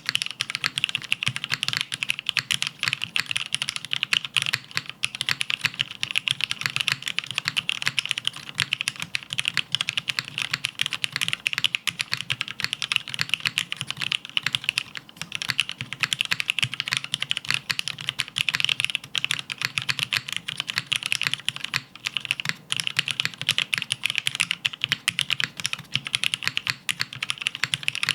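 Continuous fast typing on a Spyder TKL mechanical keyboard fitted with hand-greased Cherry MX Black linear switches on a top-mounted aluminium plate with no foam dampening, a rapid, unbroken stream of key clacks.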